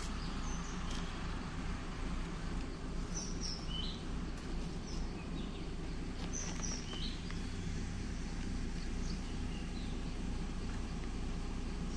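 Wild birds giving short high chirps here and there, several in the first half and fewer later, over a steady low rumble.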